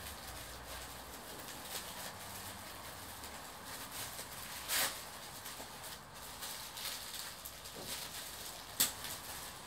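Tissue paper rustling and crinkling as it is carefully unsealed and unfolded by hand inside a gift box, with two brief louder crinkles, about halfway through and near the end.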